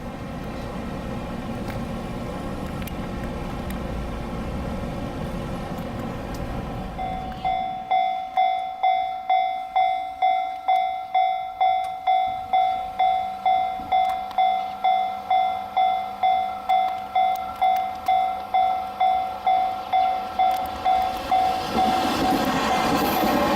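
Train running noise, then a level-crossing alarm bell ringing in a steady repeated ding, about two to three strikes a second, for about fifteen seconds. The noise of an approaching train swells in near the end.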